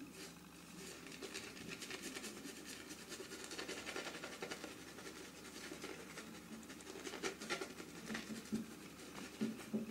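Freshly honed Kobar Solingen straight razor cutting lathered stubble on the neck: a fine, crackling scrape in repeated strokes, with several louder strokes in the last few seconds.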